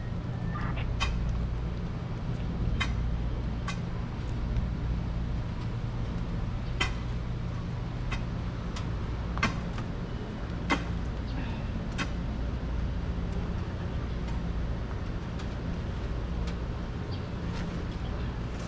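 A steady low engine-like hum runs throughout. Scattered sharp clicks are heard over it, the loudest two a little past the middle.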